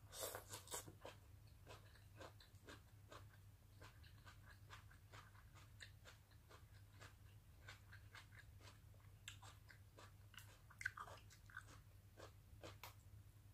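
Faint chewing and crunching of sautéed cabbage and grilled meat, a string of small wet mouth clicks that bunch up near the start and again about ten seconds in. A steady low hum lies underneath.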